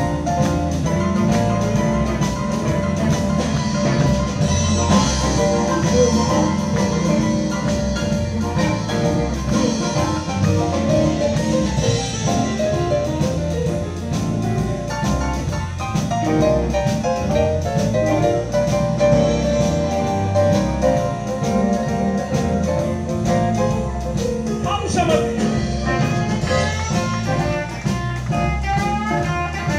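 Live blues band playing, with piano, electric guitars, bass and drums. Near the end a lead line comes forward with wavering, bent notes.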